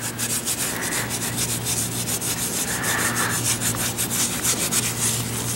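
A bare hand rubbing back and forth over a rough, freshly patched concrete pool deck, giving a gritty scraping in quick, repeated strokes.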